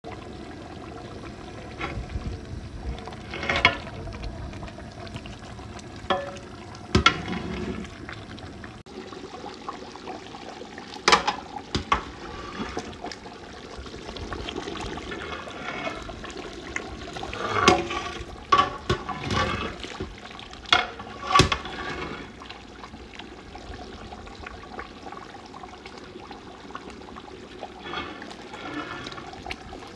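Thick minced-meat curry in a large metal pot, sloshing and bubbling as a ladle stirs through it. The ladle knocks sharply against the pot now and then.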